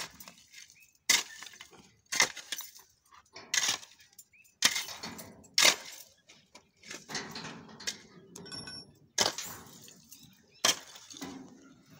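Long-handled digging tool striking stony, gravelly ground: sharp clinking strikes about once a second, about eight in all, with a pause in the middle filled by quieter scraping.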